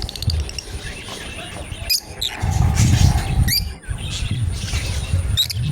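Lovebirds giving a few short, sharp, high chirps, with a quick run of high ticks at the start. A low rumbling noise runs underneath.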